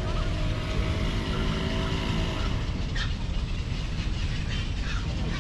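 Road traffic: a steady low rumble of passing vehicles, with a motor running close by.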